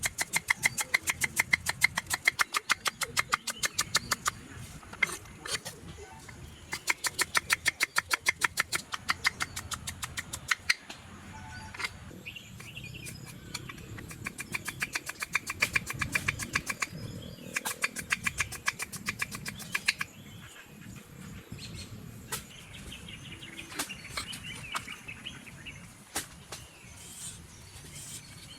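Rapid rhythmic tapping, about seven strokes a second, in runs of a few seconds with short pauses between. Birds chirp in the gaps.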